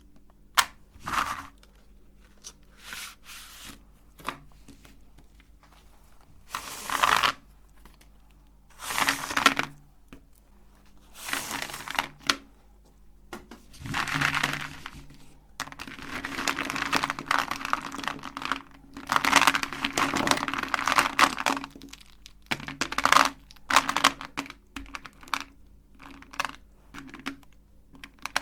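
Electric meat grinder crunching chocolate cubes: irregular bursts of crushing and cracking, some brief and some lasting a few seconds, over the grinder motor's steady hum.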